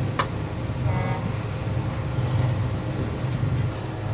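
A boat engine running with a steady drone, with a sharp click just after the start.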